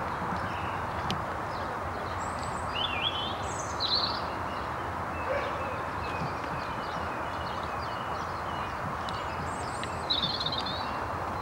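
Outdoor ambience: small birds chirping and calling now and then over a steady background hiss. The calls are loudest in flurries about three to four seconds in and again near the end.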